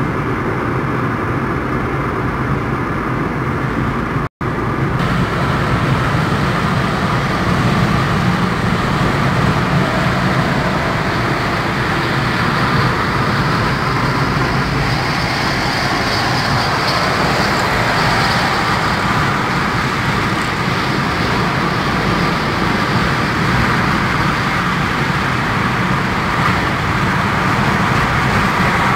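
Steady road and engine noise from inside a moving car, cutting out for an instant about four seconds in.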